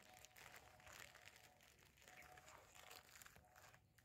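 Near silence with faint crackling and rustling.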